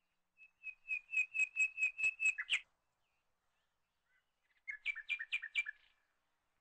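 A bird singing: a run of about five quick, evenly spaced high chirps a second, lasting about two seconds, then after a pause a shorter run of rapid chirps.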